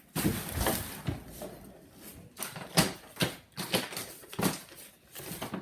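Irregular clicks, knocks and rustling of objects being handled, with a sharper knock near the middle.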